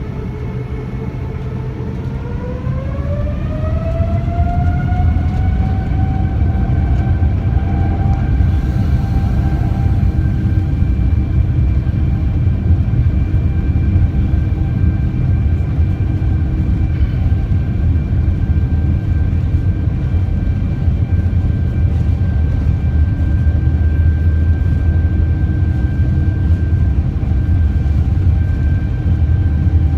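Boeing 787-9's Rolls-Royce Trent 1000 turbofans spooling up to takeoff thrust. About two seconds in, a whine rises in pitch and grows louder over a few seconds, then holds steady over a loud low rumble through the takeoff roll.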